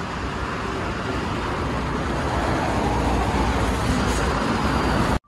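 A 2011 city bus drawing into a stop, its engine rumble and road noise growing steadily louder as it comes close. The sound cuts off suddenly just before the end. The uploader finds this bus's engine rather noisy.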